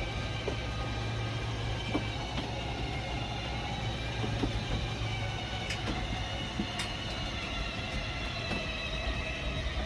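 RV slide-out mechanism running as the slide room retracts: a steady mechanical hum with a few scattered clicks and creaks, over the motorhome's idling engine.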